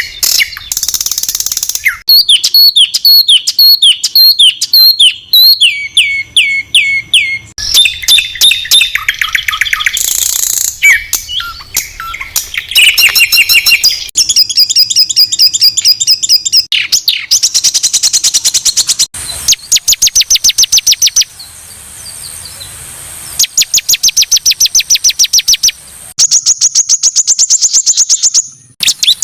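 Songbirds singing loud, high-pitched, harsh rapid-fire phrases ('tembakan kasar') of the kind played as masteran tutor song for competition songbirds. Repeated chirps, fast trills of evenly spaced notes and whistled glides follow one another, the phrase changing every few seconds.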